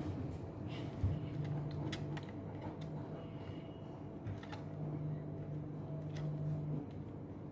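Small screwdriver tightening the screw on a toy remote-control car's plastic battery cover: scattered light clicks and scrapes of metal on plastic, over a low hum that comes and goes.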